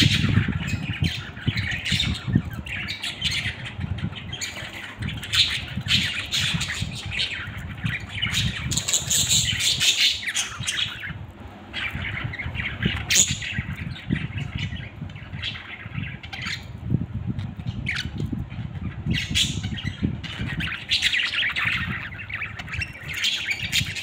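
A flock of budgerigars chattering with overlapping chirps and squawks, with wings fluttering as birds hop and fly between perches.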